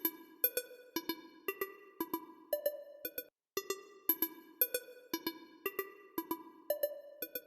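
Background music: a light electronic tune of short plucked-sounding notes in a steady rhythm, about two to three a second, with a brief pause near the middle.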